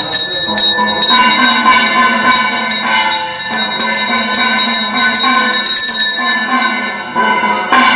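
Brass puja hand bell rung rapidly and continuously, its clapper striking many times a second so the metallic ringing tones sustain throughout.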